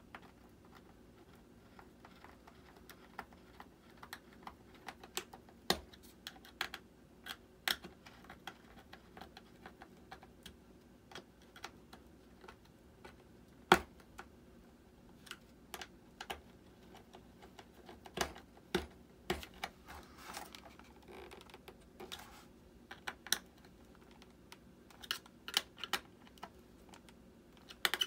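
Irregular small clicks and taps of a screwdriver and screws working on the plastic mount of an RC retractable landing gear unit, as the unit is screwed down. One tap about halfway through is louder than the rest.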